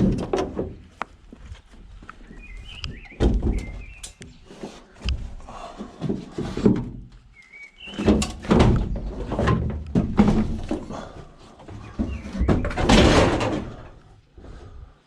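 Scrap sheet-steel Ford Transit van doors being handled and moved: a run of irregular thuds, knocks and clanks, the loudest near the end.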